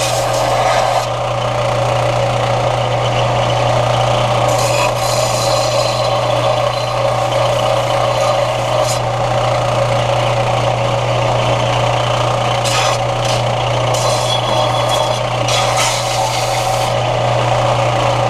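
Electric grinder running steadily on 1/8 inch steel strip to take the burrs off, with a harsher scraping grind several times as the work is pressed against it.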